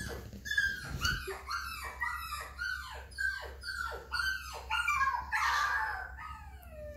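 A Boston Terrier whimpering: a quick run of short, high whines, each falling in pitch, about two a second. A rougher, louder cry comes about five seconds in, then a longer falling whine near the end.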